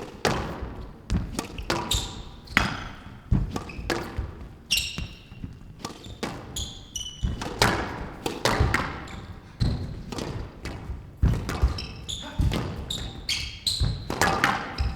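Squash rally: the ball cracking off rackets and the court walls at an irregular pace, with short high squeaks of shoes on the court floor between the shots.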